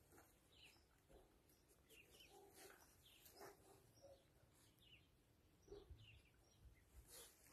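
Near silence with faint, short bird chirps now and then.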